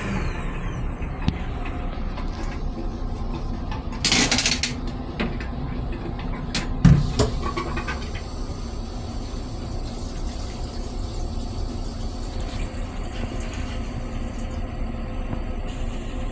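Steady low rumble of a Metro-North M3 commuter railcar, with a brief hiss about four seconds in and a sharp knock about seven seconds in.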